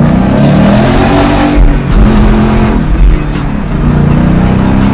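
2017 Mustang GT's 5.0 Coyote V8 heard loud from inside the cabin through a resonator-less Ford Performance exhaust while driving, the exhaust note climbing in pitch with the revs, dipping briefly about one and a half seconds in and again near three and a half seconds, then climbing once more.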